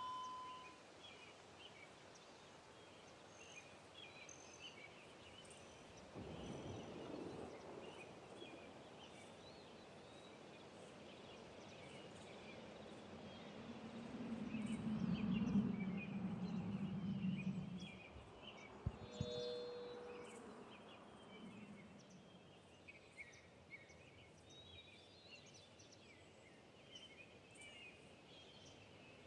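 Faint outdoor ambience with birds chirping. A low rumble swells up about halfway through, peaks and fades away a few seconds later.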